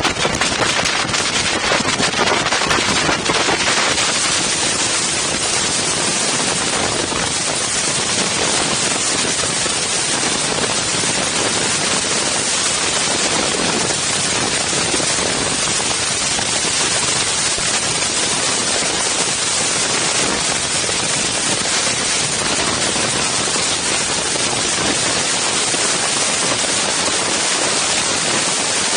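Strong wind buffeting the microphones of an Insta360 One X camera: a loud, steady rushing hiss, with rapid crackling flutter in the first few seconds.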